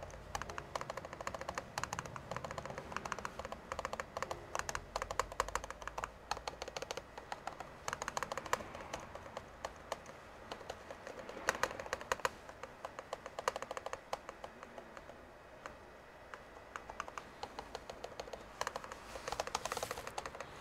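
Lenovo ThinkPad T15 trackpad buttons clicked rapidly and over and over. The refitted button is being pressed repeatedly to check that it springs back up and no longer sticks.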